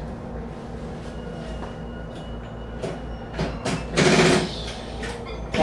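Electric train standing at a station platform, its equipment giving a steady low hum. A few clicks come around three seconds in, then a short loud hiss of air at about four seconds.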